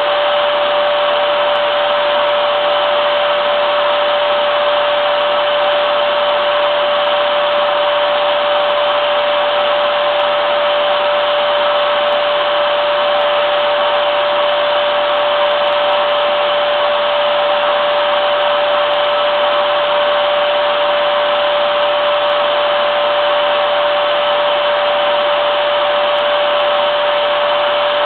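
Vacuum cleaner motor running continuously, a steady loud rush of air with a constant high whine.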